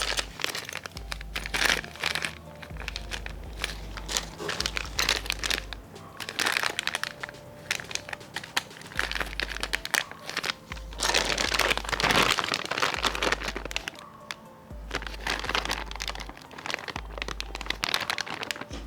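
Plastic kit packaging crinkling and crackling in repeated handling bursts, over background music with a steady low pulse.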